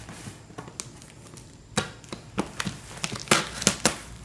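Cardboard parcel wrapped in plastic and packing tape being handled to open it: a string of sharp crackles and taps of the plastic and tape, most of them in the second half.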